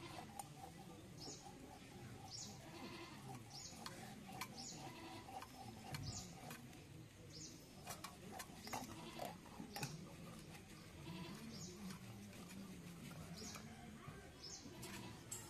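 Goat bleating faintly in a quavering, wavering voice, with small birds chirping in short calls about once a second. A few sharp clicks are heard.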